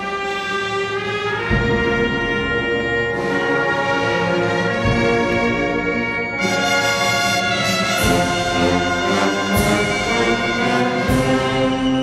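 Brass band music: sustained brass chords, with a drum struck now and then.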